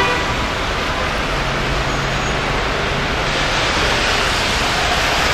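Steady city street traffic noise from passing vehicles, with a faint engine hum about two seconds in.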